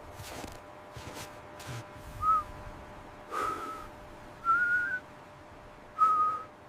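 A person whistling four short, clear notes about a second apart, the middle ones held for about half a second with a slight upward bend.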